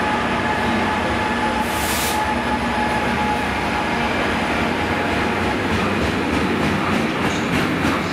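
A pair of Class 66 diesel-electric freight locomotives, powered by EMD two-stroke diesels, passing close by with a steady engine drone carrying a couple of held tones. From about six seconds in, as the wagons follow, their wheels click rhythmically over the rail joints.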